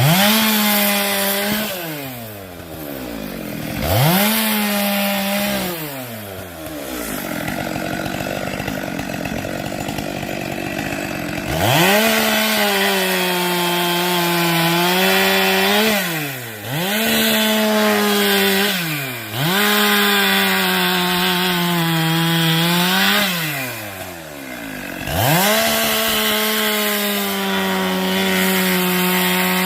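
Gasoline chainsaw revved to full throttle and held there while cutting through firewood logs, six times. Between cuts the engine drops back toward idle, with a longer idle stretch just before the middle.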